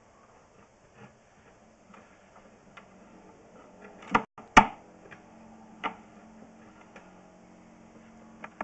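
Scattered clicks and knocks over a faint steady hum, from sewer inspection camera gear being worked: the push cable and reel being handled as the camera is fed down the pipe. Two louder knocks come close together a little past four seconds in.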